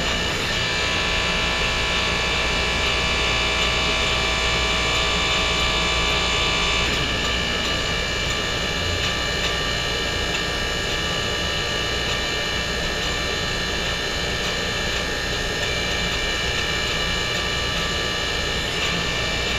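Hydraulic pump running steadily with a high whine and low hum while the press cylinder is worked through its hand control valve; the whine shifts slightly about seven seconds in.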